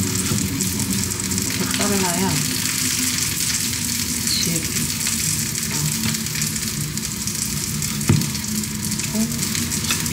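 Chef's knife slicing through a tomato on a plastic cutting board, with a sharp knock of the blade on the board about eight seconds in, over a steady hiss.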